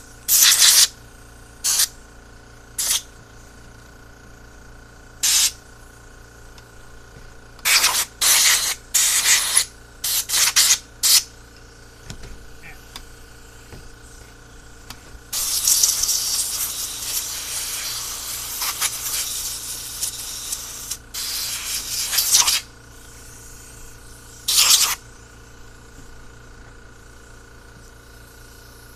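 Compressed air hissing as it is blown through a carburetor's passages to clear out dirt. It comes in a run of short blasts, then one long blast of about six seconds past the middle, and a few short ones after.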